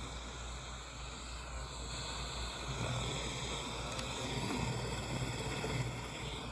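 Weather radio receiver hissing with static and a rough low hum between broadcast messages, growing somewhat louder in the middle.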